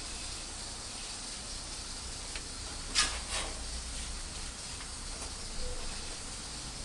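Steady hiss of a gas tandoor's burner flame running, with a low hum beneath it. Two sharp clinks come close together about three seconds in.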